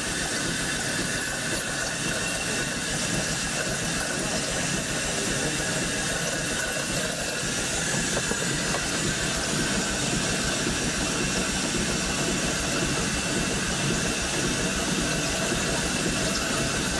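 The steam launch Consuta's vertical steam engine running steadily at close range: a continuous mechanical whirr of cranks, eccentrics and rods, with a thin steady whine over the noise.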